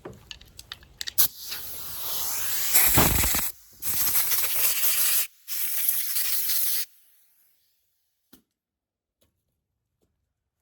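Compressed air from an air hose nozzle hissing in three long blasts with brief breaks, blowing dirt and grime off a backpack blower's engine, after a few small handling clicks.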